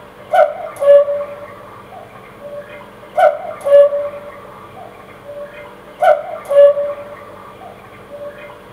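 Quartz cuckoo clock's electronic cuckoo call sounding the hour: three two-note "cuckoo" calls about three seconds apart. Each is followed by a quieter echo of itself.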